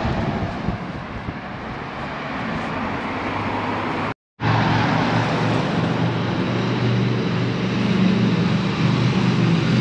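A motor vehicle engine running steadily, a low hum over general street noise. The sound cuts out completely for a moment about four seconds in, and the engine hum is louder after it.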